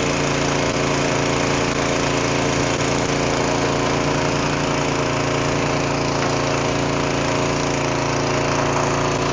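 Small engine driving the brine sprayer's pump, running steadily at idle, while the electric hose reel winds the hose back in.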